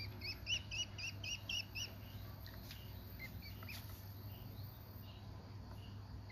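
Duckling peeping: a quick run of about eight sharp peeps, some four a second, over the first two seconds, then a few fainter scattered peeps.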